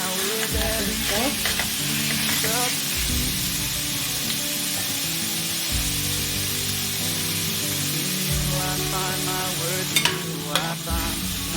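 Sliced pork sizzling in hot oil with sautéed garlic and onion in a pan as it is stirred, a steady hiss of frying. A few sharp clicks of the utensil against the pan near the end.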